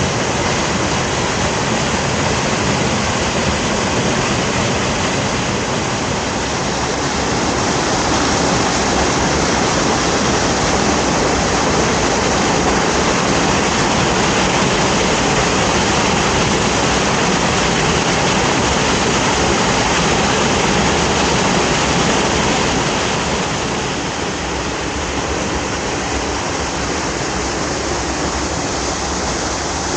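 Waterfall rushing: a steady, even roar of falling water, easing slightly about three-quarters of the way through.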